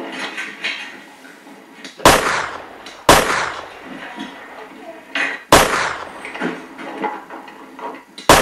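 Four loud gunshots at uneven spacing, each a sharp crack that trails off, fired in a staged shootout. Voices can be heard between the shots.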